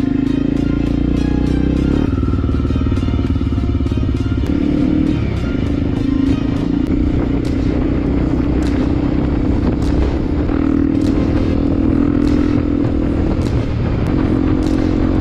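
Electronic background music with a steady beat, mixed with a Honda XR 250 Tornado's single-cylinder four-stroke engine running.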